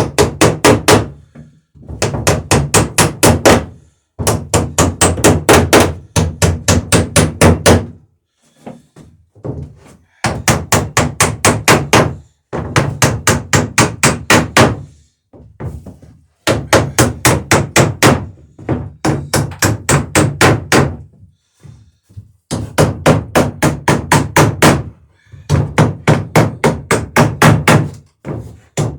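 A hammer striking nails being riveted through the overlapping sheer-strake planking of a wooden dory. The blows come in quick runs of about five or six a second, each run lasting a second or two, with short pauses between runs.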